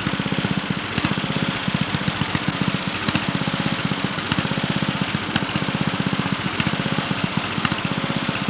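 Lawn mower's small engine running steadily up close, with a rapid, even chugging beat.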